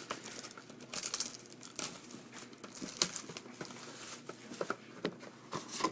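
Plastic shrink wrap crinkling and tearing as a sealed trading-card hobby box is opened, with irregular crackles and small clicks.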